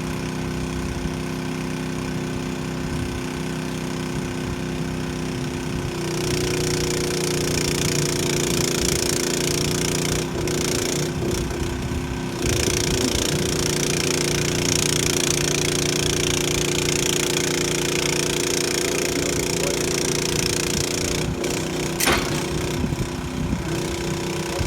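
An engine running steadily. About six seconds in it speeds up and a loud hiss joins it. The hiss drops out for a couple of seconds and then returns, and a single sharp knock is heard near the end.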